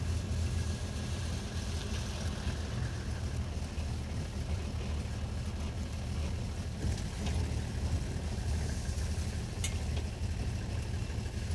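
Vehicle engine running steadily with a low, even drone, heard from on board the moving vehicle.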